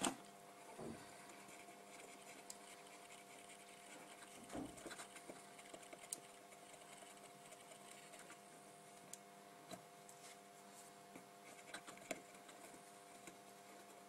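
Faint scratching and light taps of a brush scrubbing flux off a circuit board with acetone, over a steady low hum.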